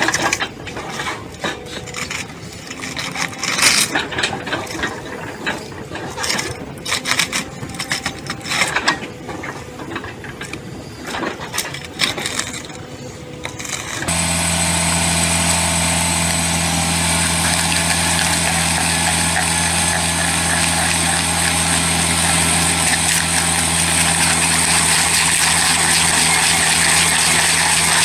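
Forestry wood-shredding machinery at work: irregular cracking and knocking at first, then a sudden change about halfway to a large engine running steadily at a constant speed with a high hiss over it.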